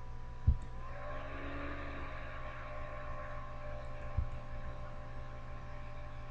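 Steady low hum with a whirring tone of several pitches that rises slightly about a second in and then holds level; a low thump about half a second in and another around four seconds.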